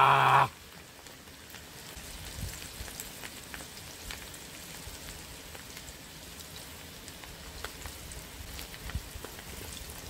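Whole webfoot octopus (jjukkumi) deep-frying in a pot of hot oil, a steady crackling sizzle with a few sharper pops.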